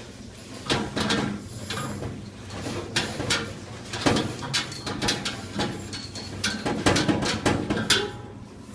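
Irregular knocks and clatters of hard dishwasher parts, such as baskets and metal pieces, being handled and set down, thickest in the second half.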